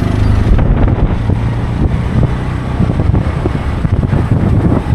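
Tuk-tuk (auto-rickshaw) engine running while driving, a steady low hum, with wind buffeting the microphone in uneven low thumps.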